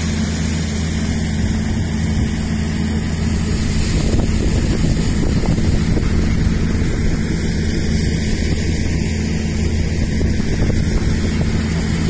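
An engine running steadily at a constant speed, with a steady low hum under a noisy wash.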